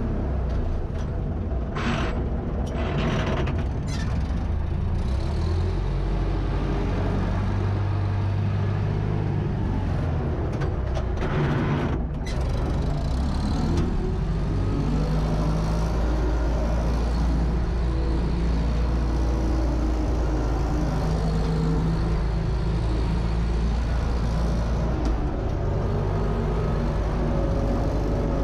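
UTB Universal U650 tractor's four-cylinder diesel engine running steadily under load while ploughing, heard from inside the cab. A few short hissing noises break in during the first dozen seconds.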